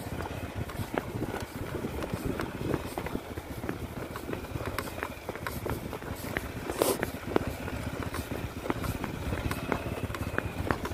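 Motorcycle engines running at low speed on a rocky dirt trail, a low rumble with stones crunching and clicking under the tyres. There is a sharper knock about seven seconds in.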